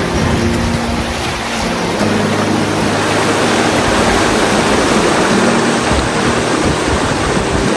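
River water rushing, a loud, even noise, with background music of held low notes underneath.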